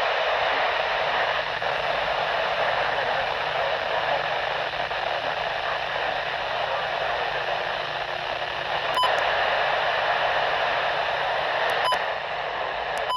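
Steady hiss of static from a NOAA weather radio receiver with no voice on the channel, with two faint clicks near the end.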